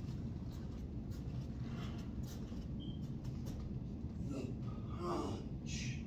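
Steady low hum of room noise with faint rustles, and a brief indistinct voice about four to five seconds in.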